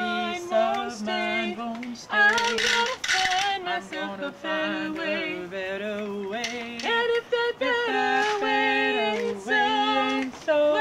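A woman singing a song, with notes held and wavering in vibrato. A short hissy noise comes in about two seconds in.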